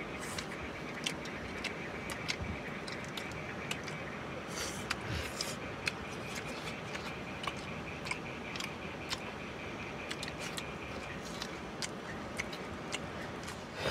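Eating by hand from steel plates: scattered small clicks and crackles of fingers picking at food and tearing paratha, with chewing, over a steady background hiss. A faint steady high tone stops about three-quarters of the way through.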